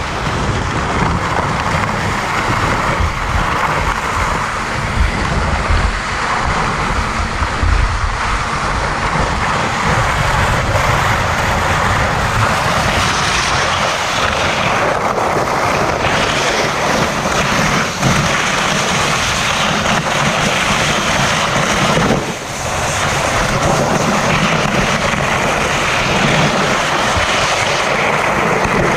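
Steady, loud vehicle engine noise while riding, with wind buffeting the microphone; the level dips briefly about 22 seconds in.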